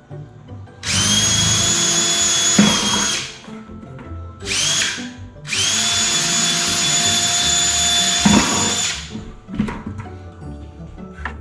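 Cordless drill boring a hole through the wall of a plastic 5-gallon bucket: three runs of the motor's high whine, about two seconds, then a brief half-second blip, then about three and a half seconds, each winding down in pitch as the trigger is released.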